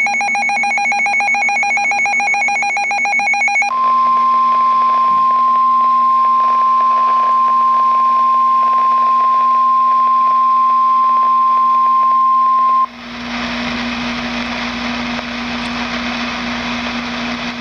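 Emergency Alert System severe-weather alert as broadcast on NOAA Weather Radio: about four seconds of rapid buzzing digital header data bursts, then the steady single-pitch warning alarm tone for about nine seconds, which cuts off sharply. Radio static hiss with a low hum follows until the voice message begins.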